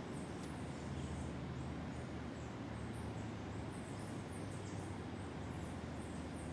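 Outdoor jungle ambience: short, thin, high-pitched chirps repeating over a steady low rumble, with a faint low hum during the first few seconds.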